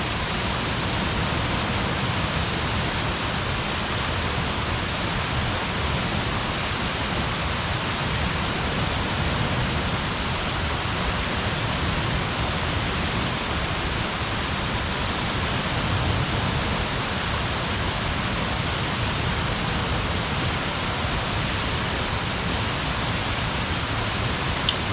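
Campfire burning, a steady rushing noise without a break.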